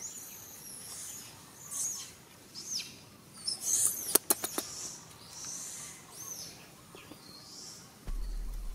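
Small birds chirping in short high calls, with a quick run of about four sharp clicks near the middle and a low rumble starting near the end.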